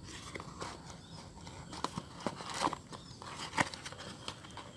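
Cardboard box being handled and opened, with scattered light clicks and rustles of the cardboard and the plastic wrap inside; the sharpest clicks come in the second half.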